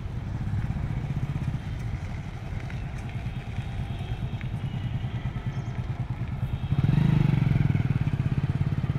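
Motorcycle engine idling with a steady low pulse, growing louder about seven seconds in.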